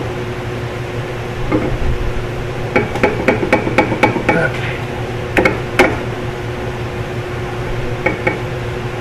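Metal clicks and knocks of a flywheel being turned and pushed against the back of the crankshaft as its holes are lined up with the three studs: a quick run of light clicks, then two sharper knocks just past halfway, and a couple more clicks near the end, over a steady hum.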